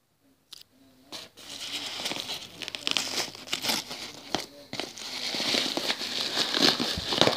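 Kraft padded bubble mailer crinkling and rustling as it is handled, starting about a second in and growing louder.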